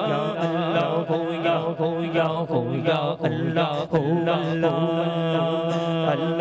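A male naat reciter singing a wavering devotional melody into a microphone, over a steady low drone.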